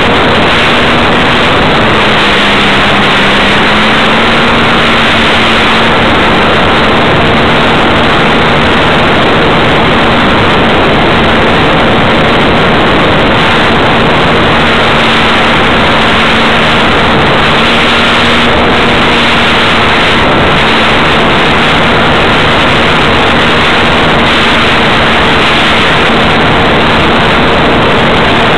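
Model Wilga aircraft's motor and propeller running steadily, heard from a camera on board and half buried in loud wind rush. The motor's pitch dips briefly about two seconds in, then holds level.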